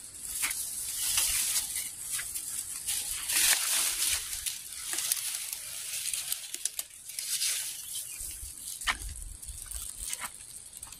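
Irregular rustling and crackling that swells and fades in waves, with scattered sharp clicks: footsteps on a dry dirt field path and leaves brushing.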